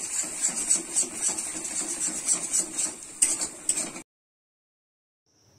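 Metal spatula scraping and knocking against a metal kadai in quick, irregular strokes as a thick masala is stirred and fried. The sound cuts off suddenly about four seconds in.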